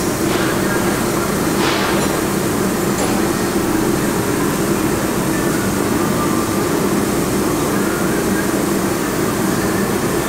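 A dynamic balancing machine spinning an SR20VE crankshaft with its flywheel fitted, giving a steady mechanical hum during a balance run. The assembly spins up normally, which the operator takes as the sign that it is not far out of balance, only a couple of grams.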